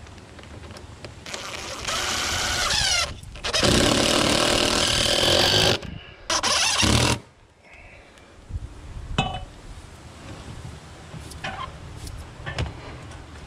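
DeWalt cordless impact driver driving screws through a steel antenna mounting bracket into a wooden eave, in three runs: one starting about two seconds in with a rising whine, a longer one of about two seconds, and a short burst near the middle; then a few light knocks.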